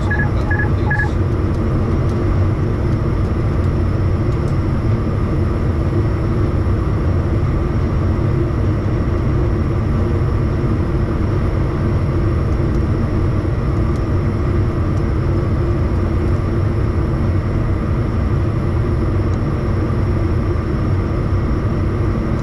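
Steady jet engine and airflow noise heard inside a Bombardier Challenger 350 on approach to land, an even rumble with a constant hum. A quick run of short electronic beeps sounds in the first second.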